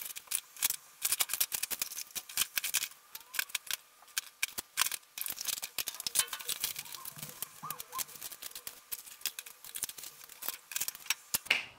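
Plastic toiletry bottles, tubes and small boxes being picked up and set down one after another: many light, irregular clicks, taps and rattles.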